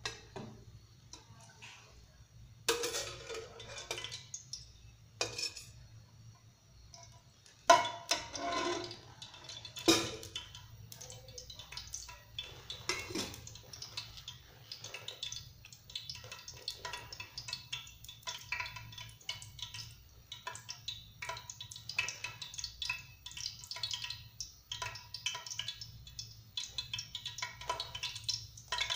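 A steel ladle knocks and clinks against a metal pressure-cooker pot several times in the first ten seconds. Then oil heating in the pot on a gas burner gives a steady patter of small crackles and spits.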